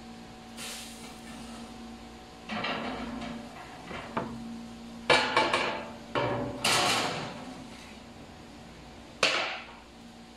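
Kitchen clatter: a series of knocks and clanks of utensils or baking trays, the loudest about five seconds in and another sharp one near the end, over a steady low hum.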